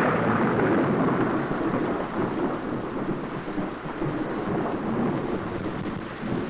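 A long rolling rumble of thunder that slowly fades, the tail of a crack just before, with steady rain underneath.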